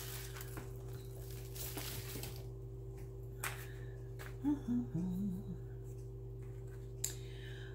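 A woman hums two short low notes to herself about halfway through, over a steady low electrical hum. Rustling from handled items fills the first couple of seconds, and there are a couple of soft clicks.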